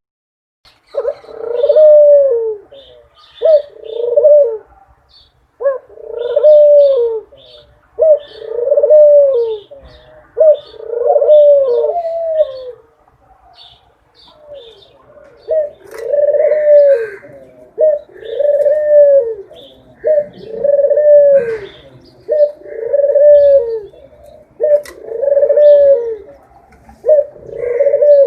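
Dove cooing: a long run of low, arching coos repeated about every one and a half to two seconds, with a brief pause about halfway through. Small birds chirp faintly in the background.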